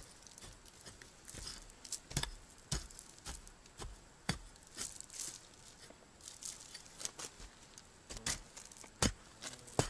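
Short-handled digging tool chopping down into forest soil: irregular dull strikes with soil crumbling and scraping between them. The loudest strikes come about four and nine seconds in.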